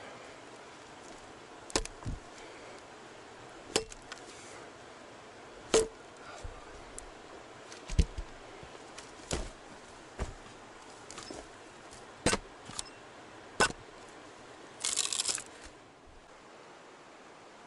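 Steel blades being driven into wooden stumps: single sharp knocks a second or two apart, about nine in all, then a brief crackling rustle near the end.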